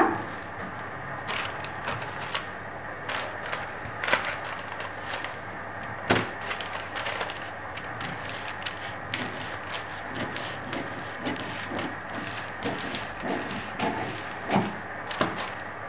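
Scissors snipping and handling a paper-backed fusible interfacing strip: scattered short clicks and rustles over a steady hiss.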